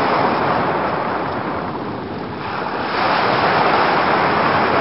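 Ocean surf: waves breaking in a continuous rush of noise, easing slightly about two seconds in and swelling again about a second later.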